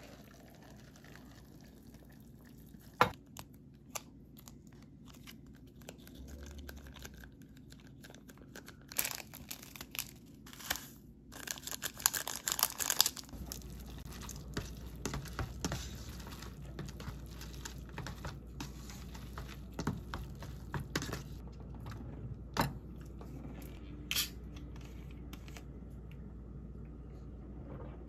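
Handling a Buldak cup noodle: paper and plastic packaging tearing and crinkling, busiest midway, then chopsticks stirring and scraping the sauced noodles in the paper cup, with scattered light taps and clicks.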